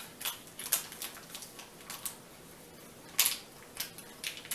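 Sharp plastic crinkles and clicks as an orange powdered drink mix is tapped and poured from its packet into a plastic water bottle, several a second, the loudest about three seconds in.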